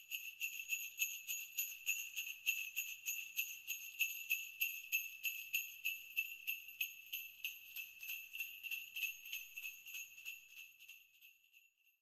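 Jingle bells shaken in a steady rhythm, about three to four shakes a second, growing louder and then fading out near the end.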